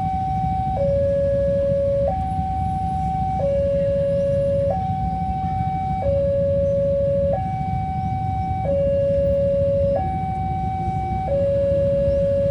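Railway level-crossing barrier alarm sounding a two-tone warning, a higher and a lower tone alternating about every 1.3 seconds, over a steady low rumble. It signals that the crossing is closed for a train.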